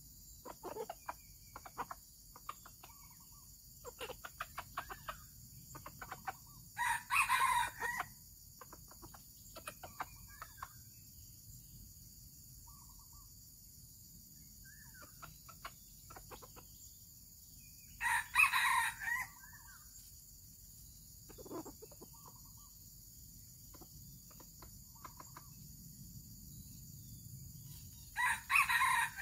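Red junglefowl rooster crowing three times: short, clipped crows about ten seconds apart. Faint short clucks and clicks come in between.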